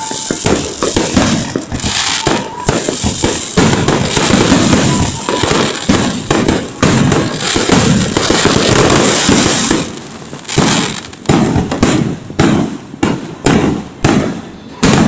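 Fireworks going off: a dense, rapid barrage of bangs and crackling for about ten seconds, then separate loud bangs at about two a second.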